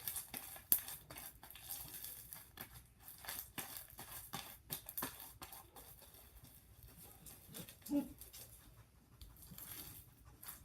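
Sticky slime being squished and stretched by hand, giving off a run of faint, irregular clicks and crackles.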